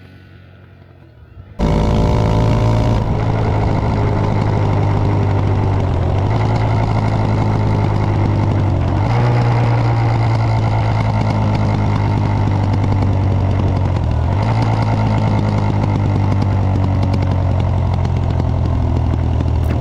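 Italika DM150 motorcycle's 150 cc single-cylinder engine running under way. It cuts in abruptly about a second and a half in, with its pitch climbing briefly, then holds a steady note that shifts slightly in pitch a few times.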